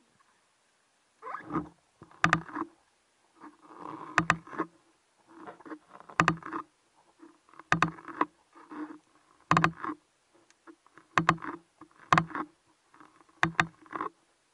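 Underwater swimming sounds from a spearfishing diver: a rhythmic rush of water with sharp knocks, about one every one and a half seconds, in time with his fin strokes.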